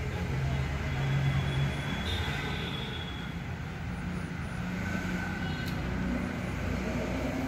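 Steady low rumble of a distant engine, with a short click about three-quarters of the way through.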